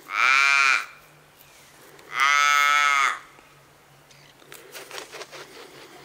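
A crow calling: two long, drawn-out caws, each just under a second and rising then falling slightly in pitch, the second about two seconds after the first. It is the call the listener hears as a 'depressed crow'.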